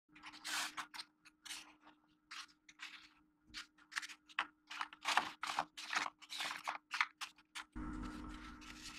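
Folded origami paper rustling and crinkling in short, irregular bursts as paper diamonds are handled, over a faint steady hum. Near the end a steadier low rumble and hiss comes in.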